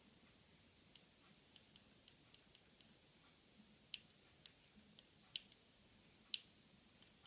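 Small sharp clicks of an Apple Remote's buttons being pressed one at a time at an uneven pace, stepping through an on-screen keyboard to type a password; three louder clicks come in the second half, with fainter ticks between, over a quiet room.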